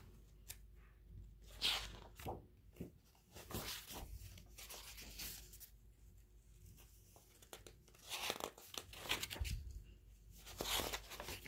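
Faint, irregular rustling of paper as a hardcover picture book is opened and its pages are turned, with a few louder rustles about two seconds in and again from about eight seconds on.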